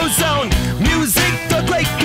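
Rock song with a steady drum beat and guitar.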